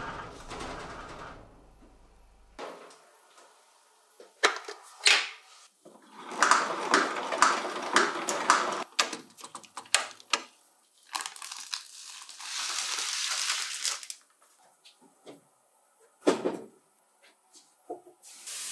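Metal fittings being handled and fitted on a sandblasting cabinet: a run of sharp metallic clicks, taps and short scrapes, densest around the middle, as brass air fittings and an air-hose quick coupler are worked into place. A steady hiss runs for about a second and a half past the midpoint, and a few separate knocks come near the end.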